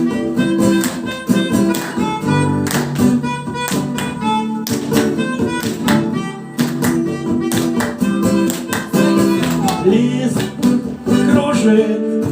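Live band playing the instrumental intro of a reggae song, guitar to the fore over a steady beat.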